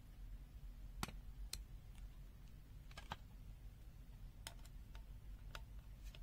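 Small plastic parts of a UNI-T UT33PRO digital multimeter clicking and tapping as the LCD screen assembly is opened by hand: several faint, sharp clicks scattered a second or so apart, some in quick pairs.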